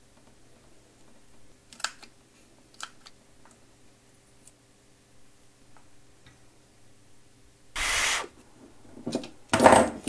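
Faint clicks and taps of small tools and a PL259 coax connector being handled on the workbench, over a steady low electrical hum. A short, loud rush of noise comes about eight seconds in.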